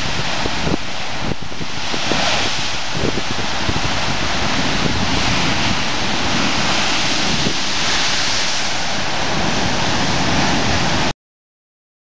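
Heavy sea surf crashing and churning over rocks in gale-force winds, with the wind buffeting the microphone in low rumbling gusts. The sound cuts off abruptly near the end.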